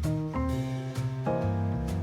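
Background music: sustained chords over a bass line, with a light beat.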